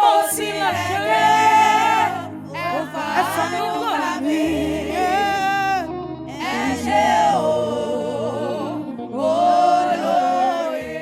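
Gospel praise singing: sung vocal phrases with melismatic runs over sustained low accompaniment chords that shift a few times.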